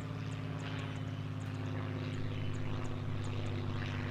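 Multirotor camera drone's propellers humming at a steady, unchanging pitch in hover or level flight.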